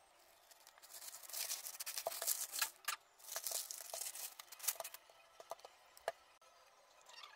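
Plastic mailer packaging being torn open and crumpled: a run of rustling, tearing noises for a few seconds, followed by a few light clicks and taps as the boxed item is handled.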